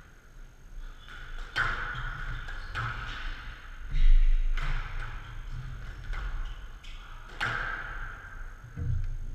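Squash rally on a glass court: the ball cracks off rackets and walls every second or two, each hit ringing out in the hall, with a heavy thud about four seconds in.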